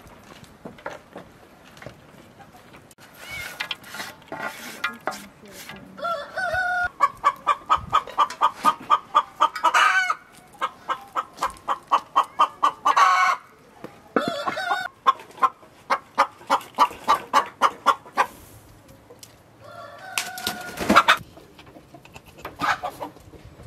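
Chickens cackling: a hen clucking in fast runs of about five clucks a second, a run ending in a louder drawn-out call, with another loud drawn-out call near the end.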